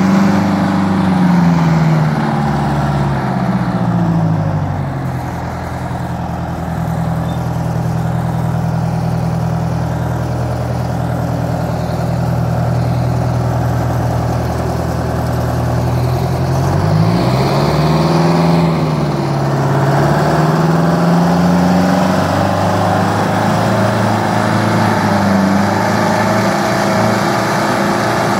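Michigan Clark 175-A wheel loader's diesel engine running under load. It revs up at the start, drops back to a steady lower speed for a long stretch, then revs up again after about seventeen seconds and stays higher to the end.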